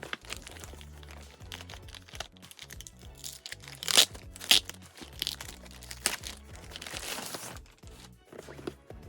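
Background music over packaging being opened by hand: a few sharp crinkling rustles about four to six seconds in, then a longer tearing rustle near seven seconds.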